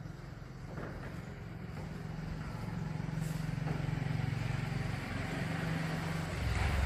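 A motor vehicle engine running close by, a low steady drone that grows louder toward the middle and swells again near the end, as a vehicle passes.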